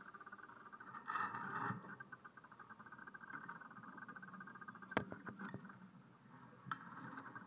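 Steady, fast buzzing from the small electric motors aboard a radio-controlled one-metre sailboat, heard through the boat-mounted camera. It gets louder for about half a second just after a second in, as the sails swing across in a tack. A few sharp clicks come about five seconds in.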